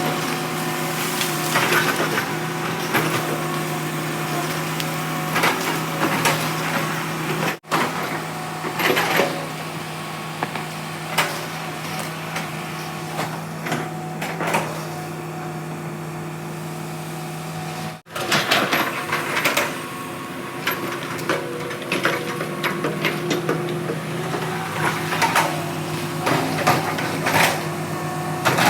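Hitachi excavator's diesel engine running steadily under work, with repeated knocks and clatters of the machine working through wood and earth.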